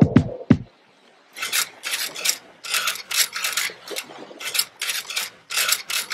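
A title-card sound effect: two sharp hits at the start, then, after a short pause, a run of short scratchy rasping sounds in uneven bursts, a few a second.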